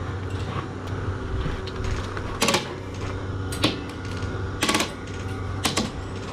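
Scattered sharp snaps of airsoft guns firing during a game: a few single shots and a short quick run of them about halfway through, over a low steady hum.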